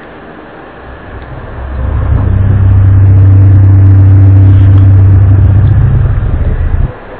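A loud, low droning hum with a steady pitch, the kind of unexplained drone circulated as the 2012 'strange sounds'. It swells up over about a second, holds steady, then cuts out briefly near the end.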